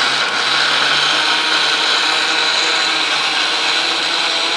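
Electric mixer grinder running steadily with a loud whir and a high whine, its stainless-steel jar grinding soaked rice and coconut pieces with a little water into batter.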